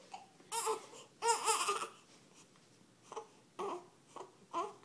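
Baby fussing with short, broken cries: two longer cries in the first two seconds, then several brief ones; she is upset by a bout of hiccups.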